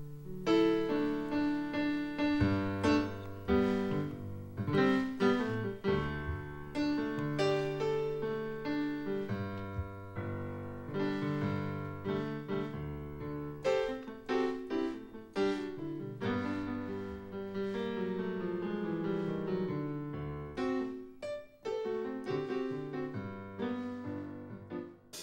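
A keyboard with a piano sound plays a song's instrumental introduction alone, struck chords and melody notes in a steady tempo.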